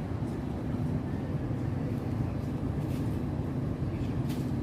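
Steady low background rumble, with a faint short click about four seconds in.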